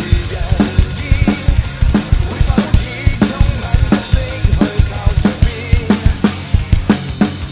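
Acoustic drum kit played live in a steady groove: kick drum and snare driving the beat, with cymbals, over a recorded backing track with a bass line and a melody.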